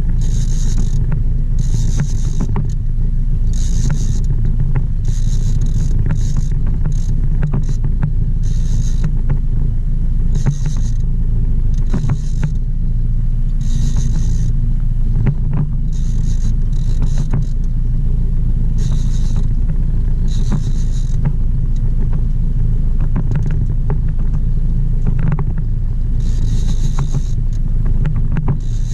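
Boat outboard motor running steadily, a low rumble, with short high-pitched whirring bursts coming and going every second or two.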